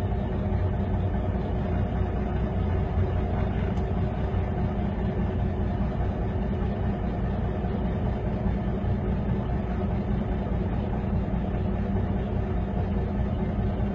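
Heavy machinery engine running steadily at a constant pitch, a low rumble with no revving.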